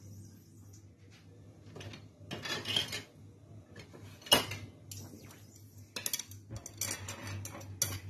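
Kitchenware clinking, knocking and scraping against a saucepan, with one sharp clank about four seconds in, over a faint steady hum.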